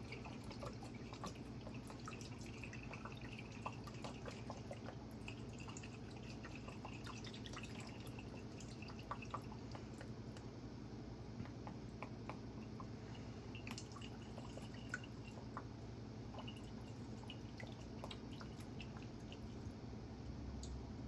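Faint drips and small scattered ticks of white balsamic vinegar being poured from a bottle over raw chicken breasts as a marinade, over a steady low room hum.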